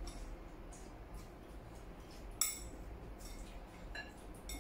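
Chopsticks clinking against porcelain bowls during a meal: a few light, ringing clinks, the sharpest about halfway through and two more near the end.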